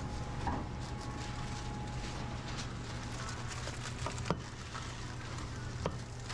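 Commercial kitchen background: a steady low hum of running equipment, with a faint high tone for a couple of seconds near the start and two sharp clicks, about four and six seconds in.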